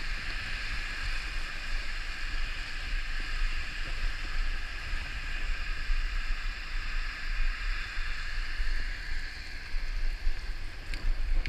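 Riding noise from a road bike: wind buffeting the handlebar-mounted camera as a steady low rumble, with the hiss of tyres on a wet road, and a few light clicks near the end.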